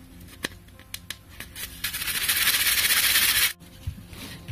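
Light clicks and knocks of hard plastic drill parts being handled. About two seconds in, a loud, steady hiss starts and runs for under two seconds, then cuts off abruptly.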